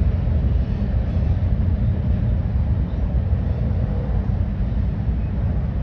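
Steady low rumble of a Union Pacific grain train, its diesel locomotives pulling covered hopper cars across an elevated steel bridge, heard from a distance.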